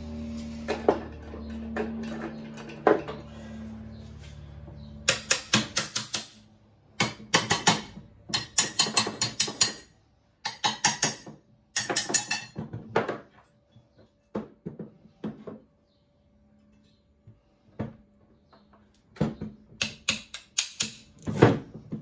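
Metal clattering and quick knocking as the end bell of a washing-machine motor is tapped and worked loose from the housing, in short bursts of several rapid strikes with pauses between.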